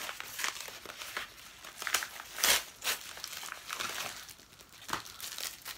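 A yellow padded mailer being opened by hand and the phone case's clear plastic bag crinkled and pulled apart: irregular rustles and crinkles, the loudest about two and a half seconds in.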